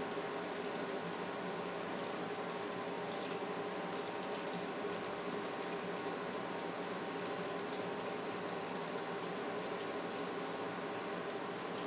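Steady whir of a running computer's fans, with scattered sharp clicks of keys being typed on a keyboard.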